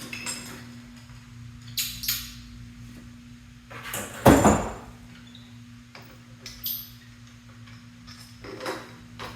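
Metal clinks and rattles of screws and tools as the handlebar clamp top plate is unscrewed and lifted off a Harley-Davidson Softail, with one louder clunk about four seconds in. A steady low hum runs underneath.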